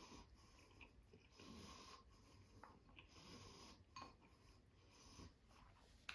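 Near silence: faint breathing, with a few soft clicks.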